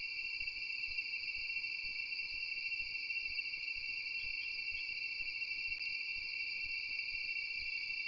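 Steady chorus of night insects: a continuous high-pitched trilling in two bands that never breaks, with a few faint chirps about four seconds in.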